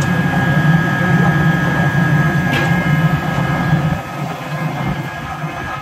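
Yulong ring-die wood pellet mill running under load, making pellets: a steady low hum with several steady high whining tones over it. The low hum drops somewhat about two-thirds of the way through.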